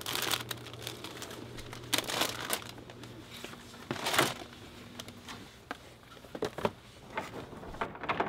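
Irregular crinkling and rustling, like a shopper handling goods and a plastic basket in a store aisle, over a low steady hum that fades out about three seconds in.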